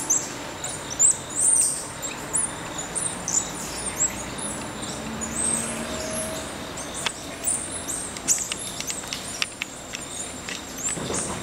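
Birds chirping: many short, high-pitched notes sliding down in pitch, coming thick and fast at first and thinning out, with a run of sharp clicks in the second half.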